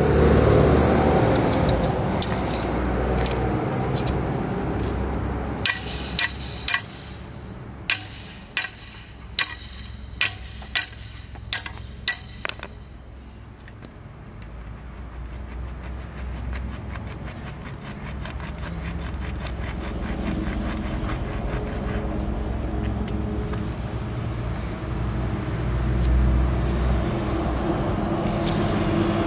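A hammer strikes the hardened steel blades of a paving block lifter about eleven times over several seconds, each blow a sharp metallic clink with a short ringing tail. The blows drive the blades down into the joints on either side of a paving block. A steady low background noise runs underneath throughout.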